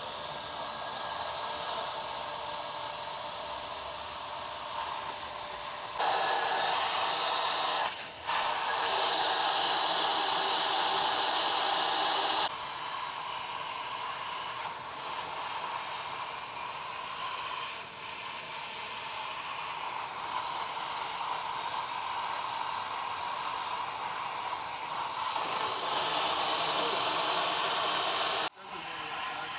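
Shop vacuum running with a steady airy hiss, louder for a few seconds at a time and cutting off suddenly near the end. It has lost suction, which is put down to a clogging line.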